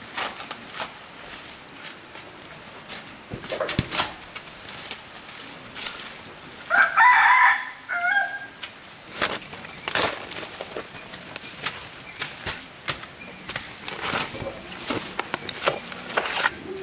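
A rooster crowing once, about seven seconds in, over scattered short knocks and clicks.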